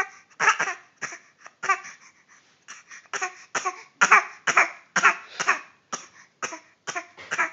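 A young boy fake coughing over and over: a rapid string of short, forced coughs, about two or three a second.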